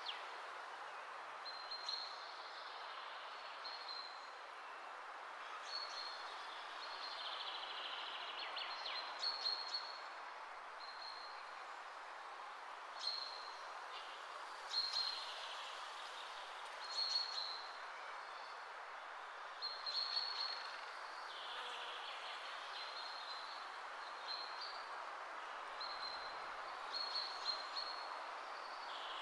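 Short, high, bird-like chirps recur every second or two over a steady hiss of background noise.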